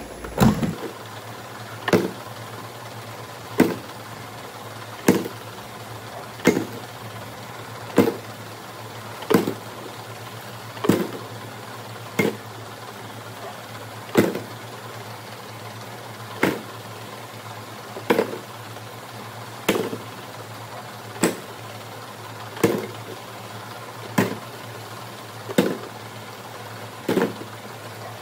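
VMek Abacus+ gummy counting machine running with a steady hum and a short clatter about every one and a half seconds as it cycles through five-count fills into small tubes.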